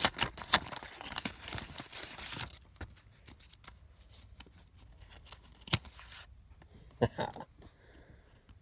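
A paper envelope being torn open by hand: dense ripping and crinkling for about two and a half seconds, then quieter paper handling with a few soft clicks as the cards are drawn out.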